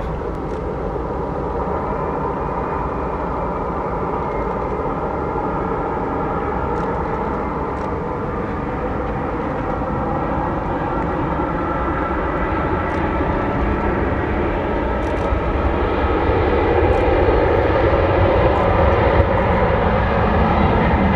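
Boeing 787-9 jet engines on final approach to land: a steady jet roar with several held whining tones that slowly shift in pitch, growing louder over the last few seconds as the airliner comes over the runway.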